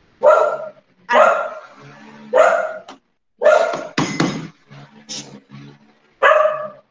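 A dog barking repeatedly: a run of short, separate barks with brief pauses between them.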